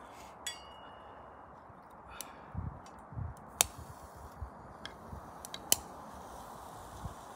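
Metal clinks and knocks at a small steel wood-burning camp stove as sticks and a pan are handled on it: a ringing metallic ping about half a second in, then scattered sharp clicks and a few dull knocks.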